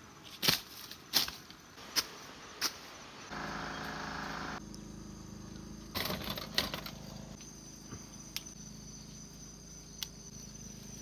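Night insects chirping, with a thin steady high tone from about seven seconds in. Several sharp knocks come in the first three seconds and two more about six seconds in, and the background changes suddenly a few times.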